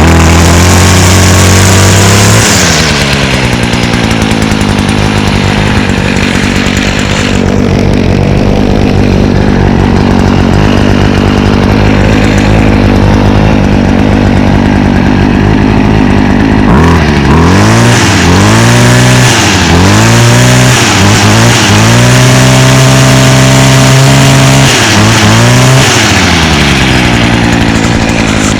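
2017 Stihl FS56 RC string trimmer's 27cc two-stroke engine running after a fresh start. It drops from high revs to a steady idle about two seconds in. Past the middle it is blipped up and down several times, held at high revs for a few seconds, then settles back to idle near the end.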